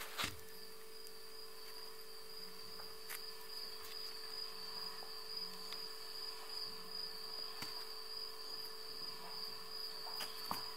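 Crickets trilling steadily, a continuous high-pitched buzz, with a faint steady hum underneath.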